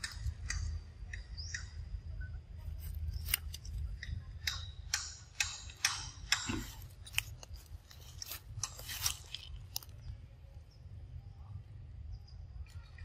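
A young macaque chewing soft ripe fruit: a quick run of wet smacking and chewing clicks, thinning out after about ten seconds, over a low steady rumble.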